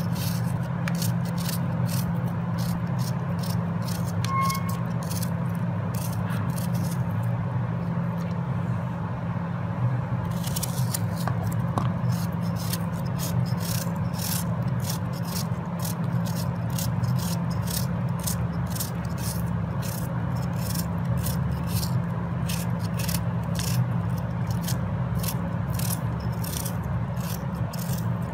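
A knife slicing through an onion held in the hand, in quick repeated strokes of about two a second, the slices dropping into a metal pot, over a steady low hum.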